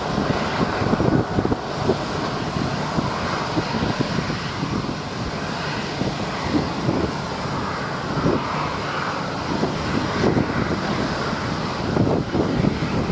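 Twin-engine jet airliner taxiing toward the listener, its engines running at low taxi power with a steady rushing whine. Wind buffets the microphone with irregular low rumbles.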